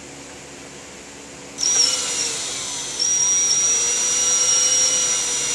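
Power drill starting about a second and a half in and drilling a hole into the wood of the belt sander's base, with a high steady whine; it eases briefly near three seconds, then runs on harder.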